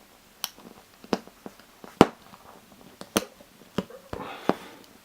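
A series of sharp clicks and taps from handling a Victorinox Executive, a small 74 mm Swiss Army knife: a fingernail catches and slips off the scissors as he struggles to pull them open. The loudest click comes about two seconds in.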